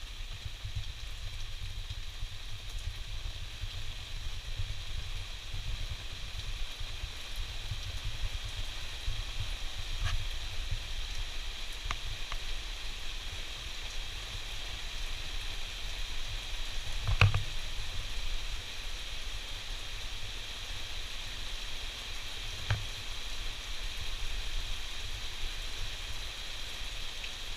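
Steady rain in a summer storm: an even hiss, with a few sharp drop hits, the loudest about two-thirds of the way through.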